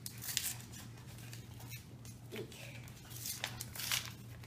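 Paper envelope being pulled and torn open by hand: a few short rustles and crinkles near the start and again around three to four seconds in.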